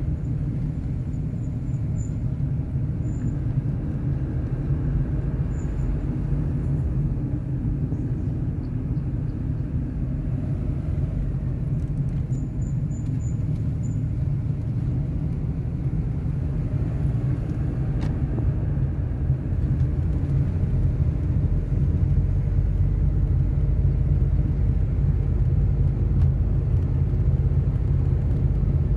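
Steady low rumble of a vehicle driving along a road, growing a little louder in the second half.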